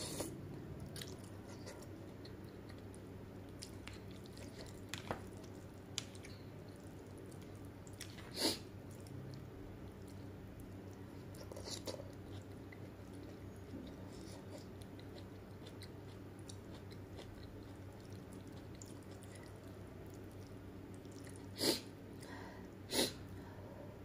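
A person chewing and slurping boiled instant noodles in broth, quiet overall. A few brief, sharp slurps stand out, about a third of the way in and twice near the end.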